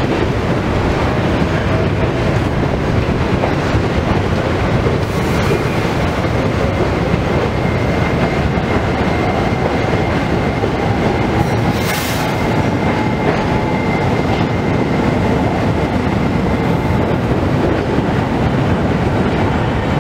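Subway train pulling out beneath, a steady rumble of wheels on the rails with faint whining tones over it and a brief hiss about twelve seconds in.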